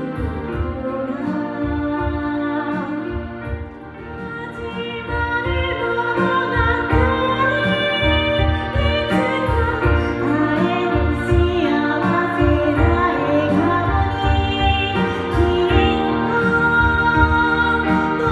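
A woman singing a solo musical-theatre song over backing music. The music drops briefly about four seconds in, then builds again with the voice.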